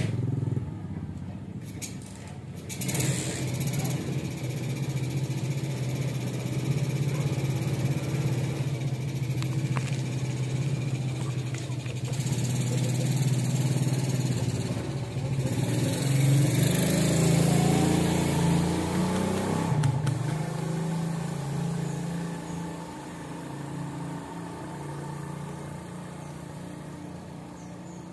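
A vehicle engine running with a steady low hum. Its pitch rises about two-thirds of the way through, then the sound dies away.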